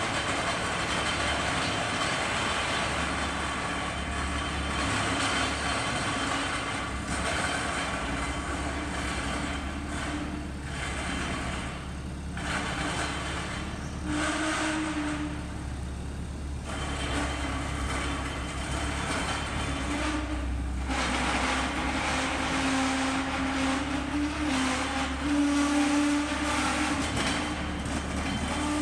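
A heavy machine's engine running under load as it lifts and pulls out an old lehr, a glass-annealing oven. There is a steady low hum, a wavering whine and a rushing noise that drops off briefly several times.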